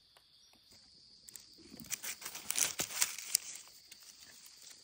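Dry leaf litter rustling and crackling for a couple of seconds as someone picks through it for mushrooms, starting about a second and a half in, over a steady high drone of insects.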